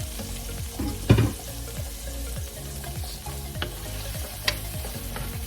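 Fresh tomatoes, garlic and onion sizzling in oil in a frying pan while being stirred, with a sharp knock of the utensil against the pan about a second in and two lighter clinks later.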